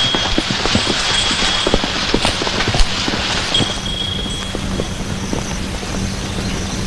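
Bearers' footsteps and the wooden sedan chair creaking on its carrying poles as it is carried along: irregular knocks and creaks over a steady hiss. The knocks thin out after about three and a half seconds.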